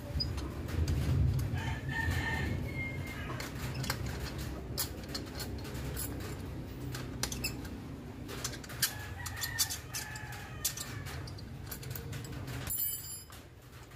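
A rooster crows twice, a couple of seconds in and again about two-thirds of the way through. Light metallic clicks and taps come from hand-tool work on a scooter's rear disc-brake caliper.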